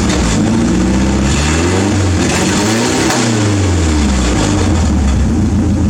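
Toyota 4Y four-cylinder petrol engine revved up smoothly for about three seconds, then falling back to idle.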